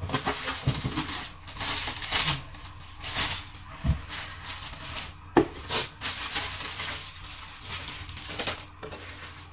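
Plastic wrapping crinkling and rustling in irregular bursts as it is pulled off a glass cookware lid, with one sharp knock about five seconds in.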